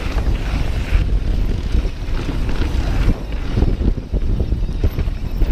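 Wind rumbling on the microphone of a mountain bike rolling fast on dirt double track, with tyre noise and short knocks and rattles as the bike runs over bumps.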